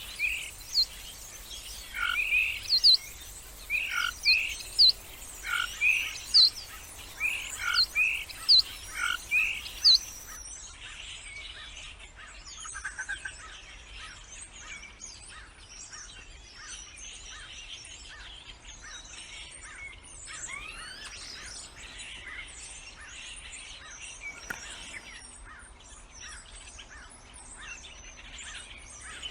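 Birds singing: a loud call phrase repeated about every half second to a second, then, after a cut to another recording about ten seconds in, a busy chatter of many birds calling at once.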